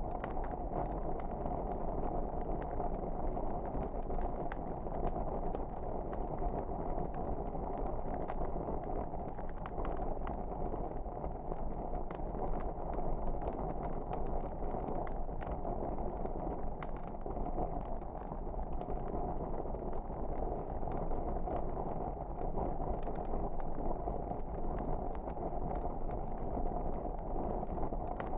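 Wood fire crackling: irregular sharp pops and snaps over a steady rushing hiss of the flames.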